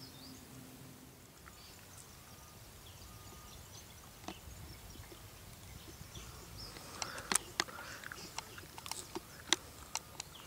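Footsteps crunching through dry leaf and bark litter: a run of sharp, irregular crackles starting about six seconds in, over a faint steady outdoor background.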